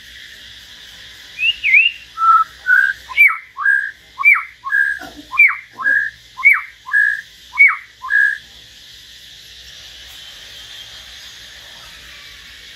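Caged songbird whistling a run of clear, loud notes, about two a second, alternating a steep falling note with a short level one. The run lasts about seven seconds and stops about two-thirds of the way through.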